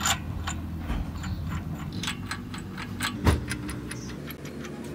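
Irregular small metallic clicks and taps as the timing-belt sprocket and its centre bolt on a Hyundai Accent petrol engine are handled, with one louder knock about three seconds in. A steady low hum runs underneath.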